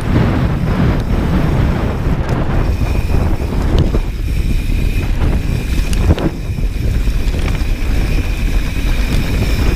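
Wind rushing over the microphone of a camera on a mountain bike ridden fast down dirt singletrack, mixed with the rumble of the tyres on the trail. A few short clicks and rattles from the bike come through it.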